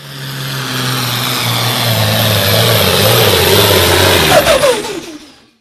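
Pulling tractor's engine running hard as it drags the weight sled past, getting steadily louder. About four and a half seconds in, a few falling tones sound, then the sound fades out.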